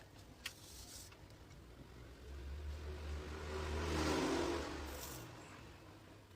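A road vehicle passing by, its noise swelling to a peak about four seconds in and then fading away.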